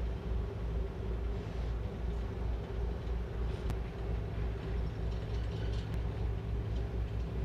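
Ship's engine running aboard the vessel: a steady low drone with a rumble that rises and falls unevenly.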